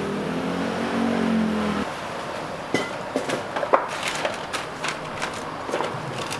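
A road vehicle's engine passing for about two seconds, then a run of sharp knocks and clanks as metal cooking gear is handled.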